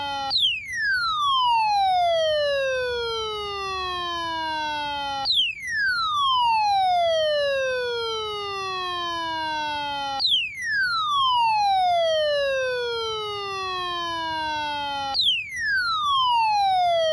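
Midland ER210 weather radio's alert siren, set off during the NOAA Weather Radio tone alarm test. It is an electronic wail that falls from high to low over about five seconds, then jumps back up and falls again, four times.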